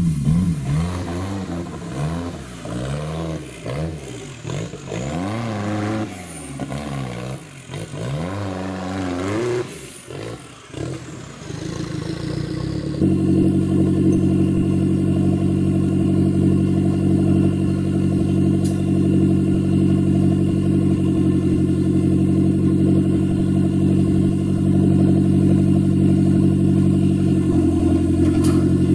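Off-road 4x4's engine revving up and down as it climbs over creek-bed rocks, then, after an abrupt change about thirteen seconds in, a steady engine note held at one constant speed.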